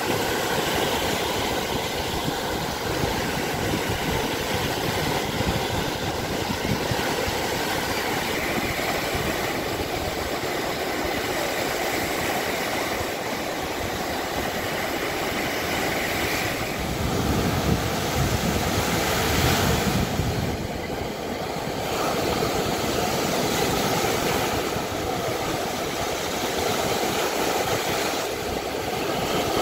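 Lake Michigan surf: waves breaking and washing up onto a sandy beach, a steady rushing noise with a low rumble that dips briefly about two-thirds of the way through.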